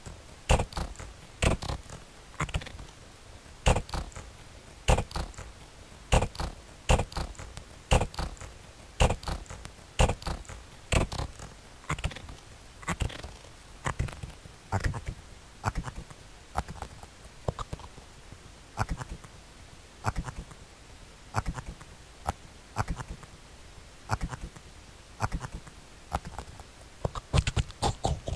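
Experimental electronic noise-music soundtrack made of sharp clicks and knocks, an irregular pulse of roughly one cluster a second that quickens into a flurry near the end.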